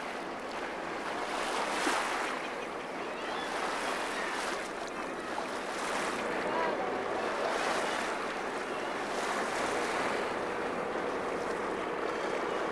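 Sea water washing around a boat and rock stacks, surging and easing about every two seconds, with some wind.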